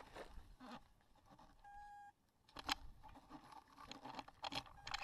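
Faint clicks, knocks and rustles, with a single short electronic beep about two seconds in.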